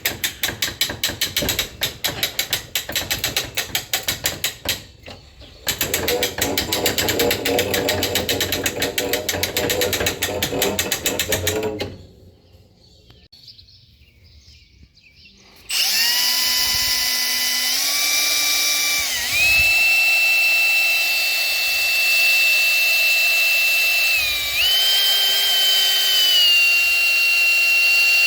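Barn curtain winch being cranked, its ratchet pawl clicking rapidly with a brief break about five seconds in, stopping about twelve seconds in. After a short pause an electric drill motor starts up with a steady whine, its pitch stepping up and dipping a few times as the load changes.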